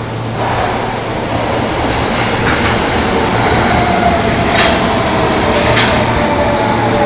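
Osaka Municipal Subway 22 series train pulling away and accelerating: a steady rumble of wheels on rail that grows, with a motor whine slowly rising in pitch. A few sharp clicks of wheels over rail joints come in the second half.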